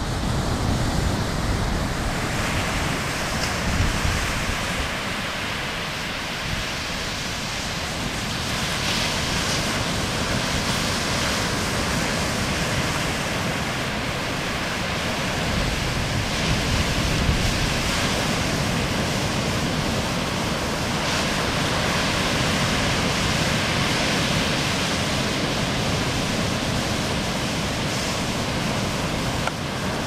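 Ocean surf breaking on the beach: a steady rush of small waves, with wind buffeting the microphone.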